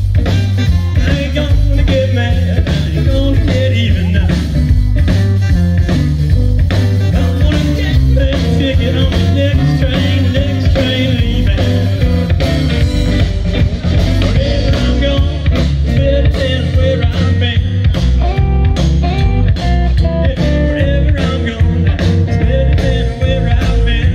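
Live electric blues band playing: electric guitar, electric bass, drums and saxophone, the saxophone playing lead over the band.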